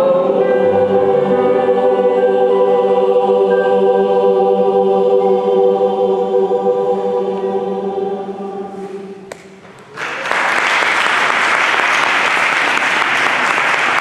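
Mixed choir holding its final chord, which fades out about nine seconds in; after a moment's hush the audience bursts into steady applause.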